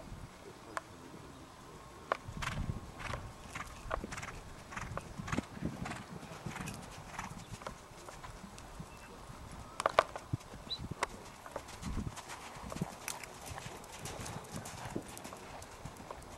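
Hoofbeats of a trotting Trakehner mare on sand arena footing: a run of muffled thuds and clicks, with one sharper knock about ten seconds in.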